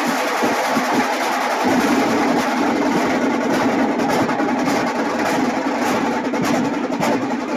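A troupe of dhol players beating large double-headed barrel drums with sticks in a loud, dense, continuous rhythm.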